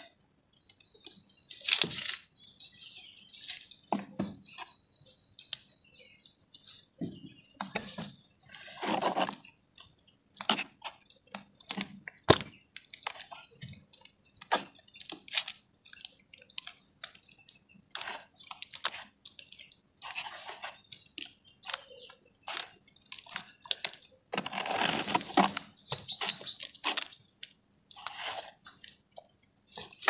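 Wet squelching, slapping and sloshing of hands kneading and pulling apart soaked red dirt in a basin of thick muddy water, in irregular short bursts with one sharp wet click. A longer stretch of sloshing comes near the end, joined by a quick run of high chirps.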